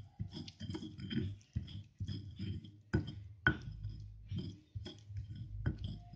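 Stone pestle grinding a wet yellow spice paste in a stone mortar (Indonesian ulekan and cobek): rhythmic scraping strokes about twice a second, with a few sharp knocks of stone on stone.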